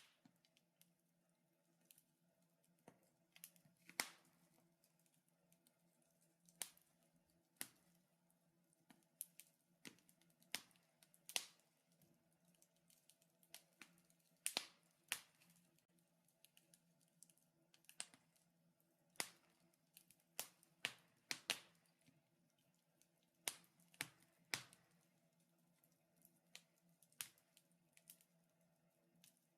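Burning wood crackling in a fireplace: irregular sharp snaps and pops, several a few seconds apart and a handful much louder, over a faint steady hum.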